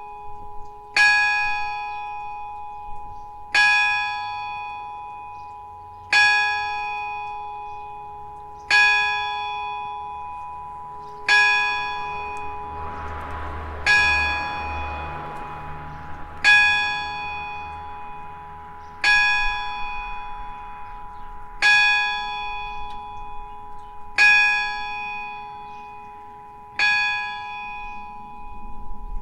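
Church bell cast by Eijsbouts, strike note G-sharp (gis2), hit by a hammer about once every two and a half seconds, eleven strokes in all. Each stroke rings out and dies away before the next. A rushing noise rises and falls about halfway through.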